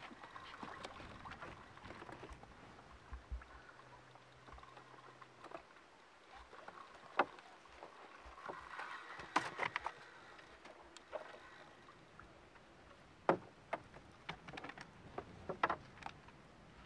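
Small boat on the water: a light hiss of lapping water with scattered sharp clicks and knocks from the rod, reel and boat as a hooked carp is played. A brief low hum about three seconds in.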